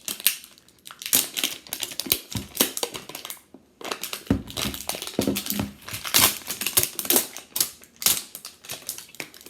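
Plastic toy packaging wrap being peeled and crumpled by hand: a dense, irregular crinkling and crackling, with a brief pause a little before the middle.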